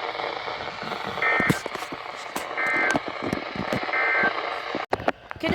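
NOAA Weather Radio SAME end-of-message signal: three short, identical buzzy data bursts about a second and a half apart over radio static, marking the end of the emergency alert broadcast. A few sharp clicks come near the end.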